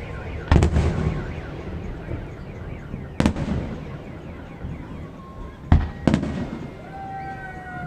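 Fireworks salvos bursting in the sky: about four sharp bangs, the loudest about half a second in and near the end, with a crackling haze and short whistling tones between them and a steady high tone near the end.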